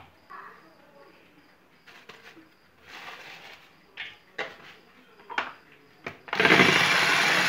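A few light taps and clicks, then about six seconds in an electric hand mixer switches on suddenly and runs loud and steady, its beaters whisking thin cake batter in a bowl.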